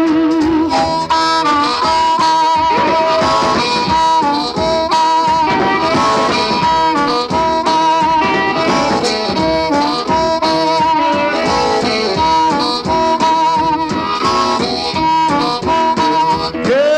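1951 electric blues record: a harmonica plays long, wavering held notes over a steady, driving band rhythm.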